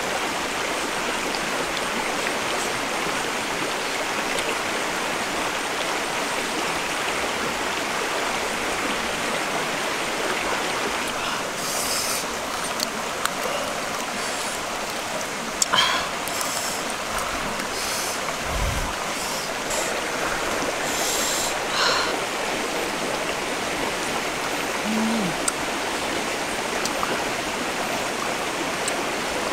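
Rocky stream rushing steadily, with a few short clicks and smacks partway through.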